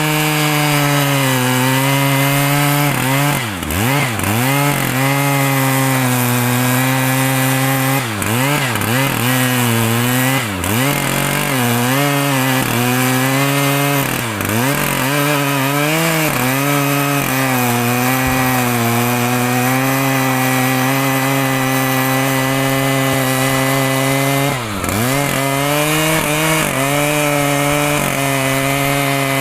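Two-stroke chainsaw running near full throttle while cutting through mahogany wood. Its engine pitch dips sharply and briefly about six times, then climbs straight back to speed.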